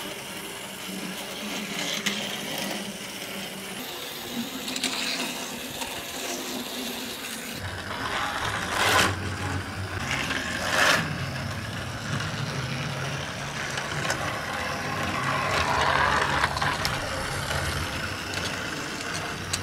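Battery-powered plastic toy train running on plastic track: its small motor runs and the train rattles along the track. There are two sharp knocks, a couple of seconds apart, about halfway through.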